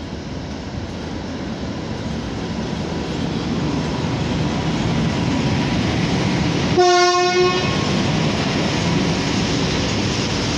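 An ET22 electric freight locomotive hauling flat wagons runs past close by, its running and wheel noise growing louder as it nears. About seven seconds in, one short horn blast sounds, then the wagons keep rolling past.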